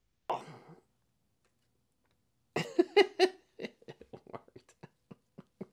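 A man's short pained exhale, then laughter about two and a half seconds in: a loud outburst followed by a run of short chuckles, about three a second, that fade away.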